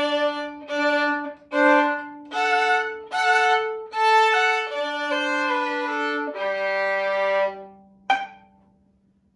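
Violin playing the closing phrase of a G major etude in double stops, two strings bowed together on each note, ending in a long held chord with the low open G ringing under it. About eight seconds in comes a single short left-hand pizzicato note, plucked with the pinky on the E string, as the final note.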